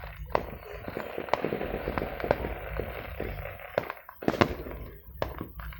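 Fireworks and firecrackers going off: a string of sharp pops and bangs at irregular intervals. The loudest bang comes about four and a half seconds in.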